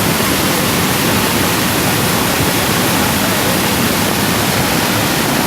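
Waterfall in monsoon spate: a loud, steady rush of falling water.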